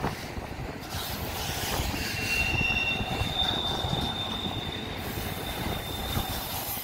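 Double-stack intermodal freight cars of a BNSF train rolling past close by on the climb, wheels running on the rails with a steady noise. From about two seconds in, a high-pitched wheel squeal rings out as two steady tones, one brief and one lasting until near the end.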